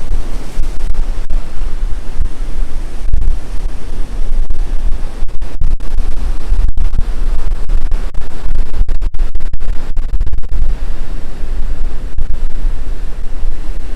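Strong wind buffeting the microphone, a loud, gusting low rumble, over the hiss of surf on the beach.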